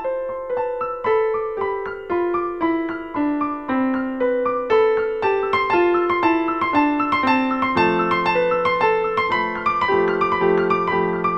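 Background piano music: a melody of single notes, about two a second, stepping downward in repeated runs, with lower held notes joining about eight seconds in.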